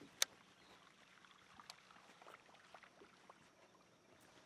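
Handling of a baitcasting rod and reel: one sharp click about a quarter second in, then soft scattered ticks over quiet surroundings.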